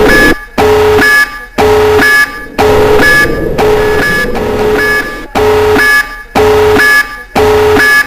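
Electronic alarm buzzer sounding in a steady repeating cycle of about one a second, each cycle a harsh held tone broken by a short gap.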